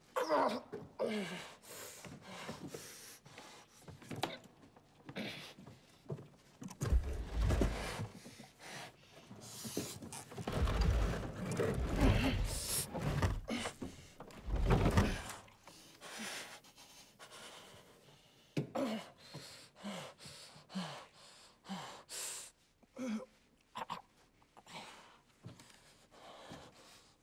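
A man's heavy breathing and gasps as he works in the dark, with many small clicks and knocks of wood and hardware being handled. A deep low rumble swells up twice in the middle, the loudest part, for several seconds the second time.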